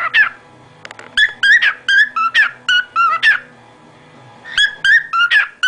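Cockatiel whistling a tune: phrases of quick, clear notes, about four a second, with pauses of about a second between phrases.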